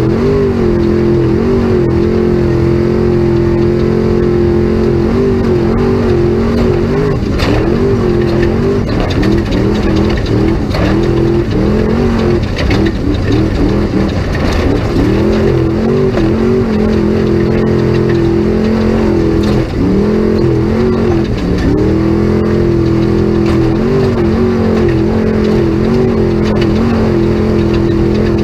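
Off-road race truck's engine heard from inside the cab, revving up and down continuously as the throttle is worked, with a few sharp knocks in the first half.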